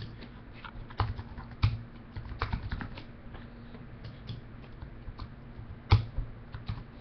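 Typing on a computer keyboard: irregular keystrokes, with a few louder clicks about a second in and near six seconds.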